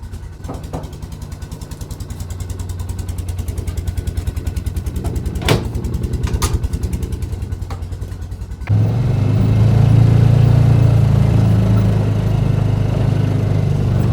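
Vehicle engine idling with an even pulsing beat, a few sharp knocks over it. About nine seconds in it suddenly gets louder, settling into a steady deeper run as the vehicle works under load.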